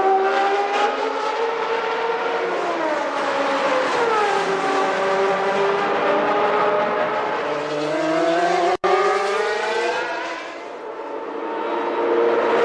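1991 Formula One car engine running hard at high revs, its pitch dropping between about two and four seconds in, then climbing and falling again with the car's speed. The sound cuts out for an instant nearly nine seconds in.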